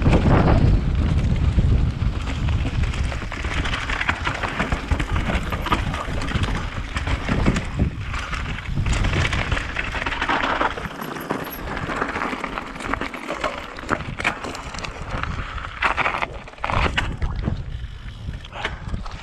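Mountain bike riding fast downhill over dirt and loose stones: wind buffeting the camera microphone, tyre noise and the bike rattling and knocking over bumps. The wind rumble is heaviest in the first couple of seconds.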